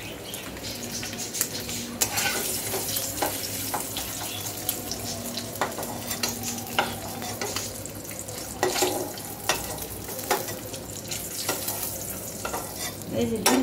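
Oil sizzling in an aluminium wok as turmeric-coated boiled eggs fry. Through it, a metal spatula scrapes and clinks against the pan as the eggs are lifted out, many times over.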